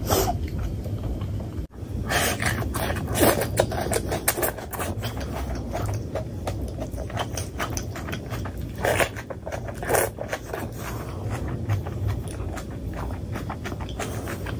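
Close-miked wet eating sounds: chewing and lip smacks on fatty pork curry with rice, with irregular sticky clicks and squishes from curry-coated fingers, over a steady low hum.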